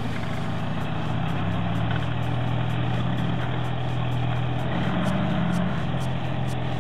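Engines of small homemade garden tractors running steadily under load. One engine note rises for a while about five seconds in. The load is one tractor working to free another that has bogged down hauling a loaded trailer.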